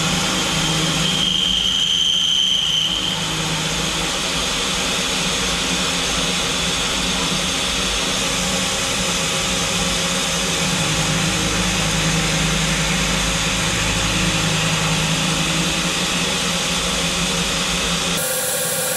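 Indexable-insert end mills milling metal on a Swiss-type automatic lathe: a steady, loud cutting and spindle noise over a low hum, with a brief high whistle about one to three seconds in.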